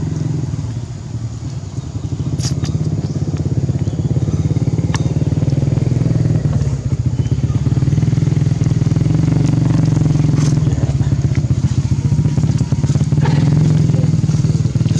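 An engine running steadily, a low drone with fine rapid pulsing that dips a little about a second in.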